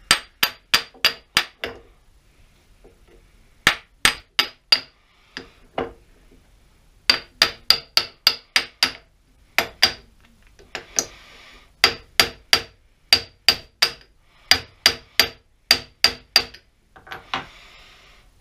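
A small copper-headed mallet tapping a round metal part into place on a lathe carriage. The taps come in quick bursts of several, about four or five a second, each with a short metallic ring, with pauses between bursts.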